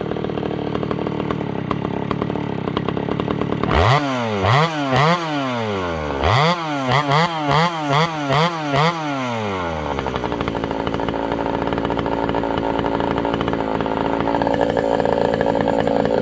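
Pioneer P51 two-stroke chainsaw running with its new bar and chain fitted: at first it runs steadily, then from about four seconds in it is blipped up and down about eight times in quick succession, and from about ten seconds in it runs steadily again.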